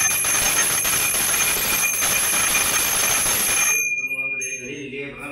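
Puja hand bell (ghanta) rung rapidly and continuously, its steady ringing tones over the clatter of the clapper. It stops about four seconds in, and one tone rings on for a moment.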